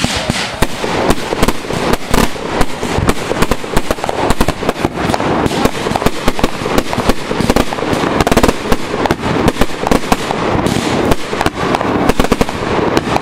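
Fireworks going off in a dense, rapid barrage of sharp bangs and crackling, many reports a second without a break. It starts abruptly.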